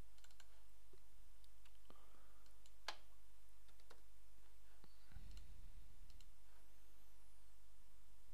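Scattered computer mouse clicks and keyboard keystrokes, the sharpest about three seconds in, over a steady low hum.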